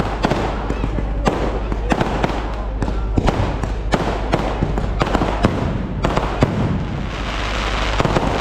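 Fireworks display: a dense, irregular run of sharp bangs and crackles from bursting aerial shells over a continuous low rumble, several reports a second. A hiss swells up about seven seconds in.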